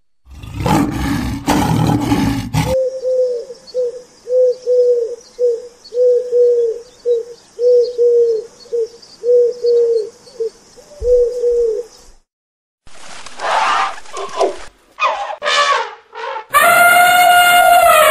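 A lion's roar ends a few seconds in. Then a bird repeats a short, low call about twice a second over a steady high hiss. Near the end an elephant trumpets with a long, loud call that holds and then falls.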